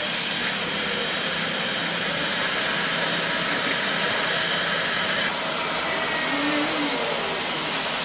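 Diesel engine of a loaded Mitsubishi Fuso dump truck running as the truck manoeuvres, steady, with a brief rise and fall in pitch near the end.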